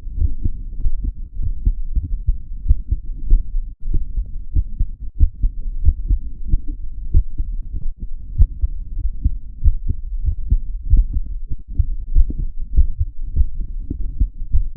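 A woman's heartbeat picked up by a microphone held against her chest under her clothing: repeated low, muffled thumps.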